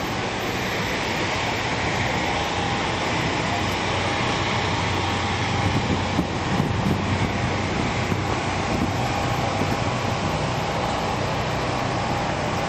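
Steady city traffic noise: a constant rumble and hiss of passing road vehicles, with a faint steady hum underneath.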